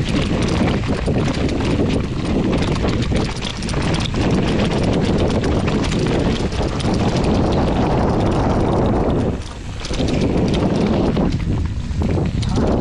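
Hardtail mountain bike rolling fast down a rocky dirt trail: tyres crunching over stones and a steady clatter and rattle from the bike as it bounces over the rough ground, briefly quieter about nine and a half seconds in.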